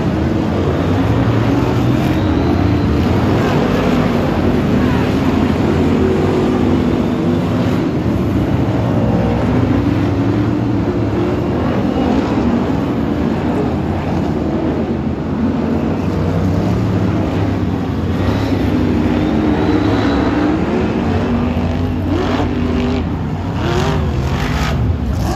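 A pack of BriSCA F1 stock cars racing on a shale oval, their V8 engines running loud together, the engine notes rising and falling as the cars accelerate and lift through the bends. A few sharp knocks come near the end.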